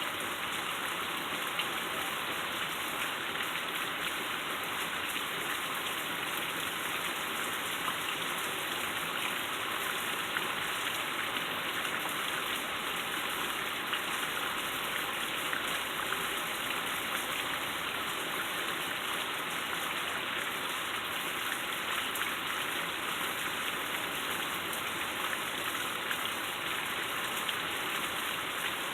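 Heavy rain falling steadily, a dense even patter of drops that never lets up.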